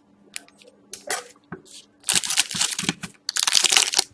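Trading-card pack wrappers being torn open and crinkled, in four short bursts with the longest near the middle, over a faint steady hum.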